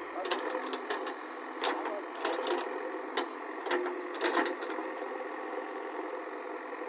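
Backhoe loader's diesel engine running steadily, with a series of irregular sharp metallic clanks and knocks in the first four or five seconds.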